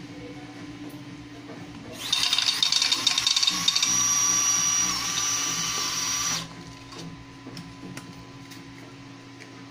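Electric card shuffler's small motor whining for about four seconds, with rapid ticking in the first part as the cards are dealt out to both sides. It cuts off suddenly, followed by a few light clicks as the cards are handled.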